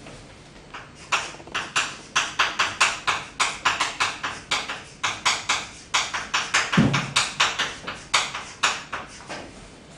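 Chalk writing on a blackboard: quick sharp taps and short scrapes as each character stroke is drawn, about three or four a second, in short runs.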